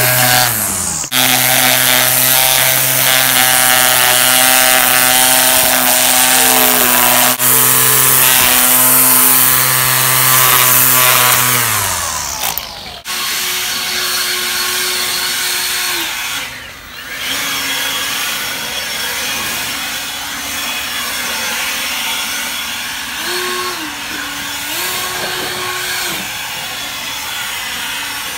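A power tool for yard work running at a steady high speed, then falling in pitch and stopping about twelve seconds in. A quieter machine hum with a shifting pitch follows.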